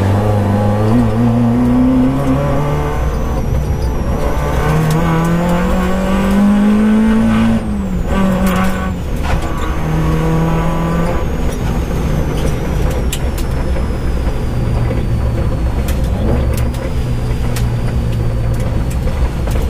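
Peugeot 205 GTi rally car's engine heard from inside the cabin, revving up hard under acceleration for the first seven seconds or so, then dropping suddenly as the throttle closes, with a few sharp knocks. It then runs at lower, steadier revs for the rest.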